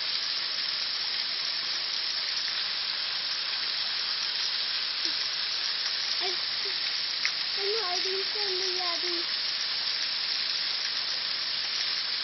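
Steady hiss of running creek water. Faint voices murmur for a few seconds in the middle.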